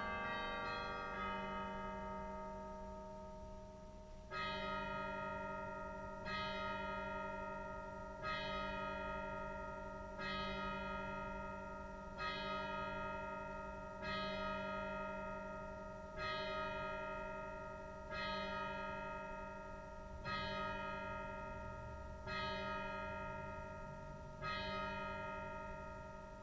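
A single church bell tolling, struck about once every two seconds, eleven strokes in all, each ringing on and fading into the next. For the first few seconds, before the tolling starts, the last of a held chord dies away.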